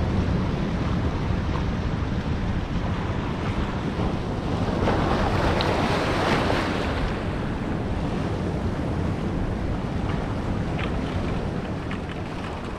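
Sea waves washing against the boulders of a rock jetty, with strong gusting wind rumbling on the microphone; the wash swells louder for a couple of seconds about five seconds in.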